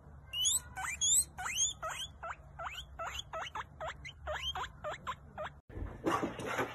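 Guinea pig wheeking: a quick series of short whistled squeals, about three a second, each sweeping up and then down in pitch. Near the end they stop and a burst of scuffling noise follows.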